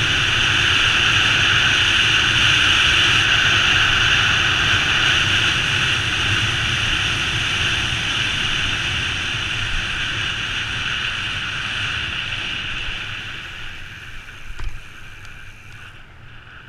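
Steady rush of wind over a bicycle-mounted camera's microphone during a fast downhill ride. It dies away over the last few seconds as the bike slows, with a short knock near the end.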